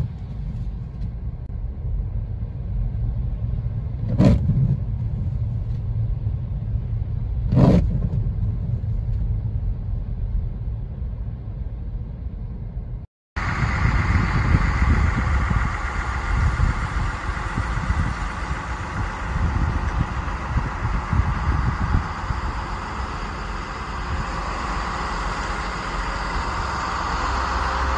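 A steady low rumble of a car heard from inside the cabin, with two short knocks, one about four seconds in and one about eight. After a cut about thirteen seconds in, a steady rushing noise of snowy outdoor air takes over.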